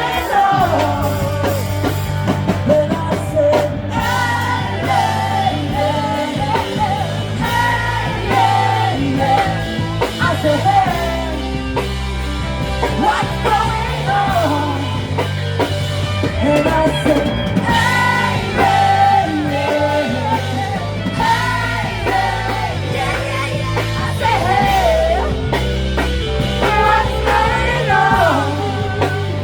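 A live rock band playing a song, a singer's voice carrying the melody over a steady bass line.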